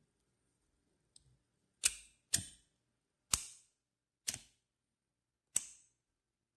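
Dunhill Rollagas lighter's striker worked five times with a freshly changed flint, each stroke a sharp click with a short fading tail.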